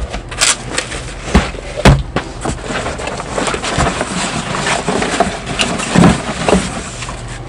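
Hands rummaging through a cardboard shipping box full of paintball vest pouches: irregular rustling with several sharp knocks and thumps of the box and flaps, most in the first two seconds and one more about six seconds in.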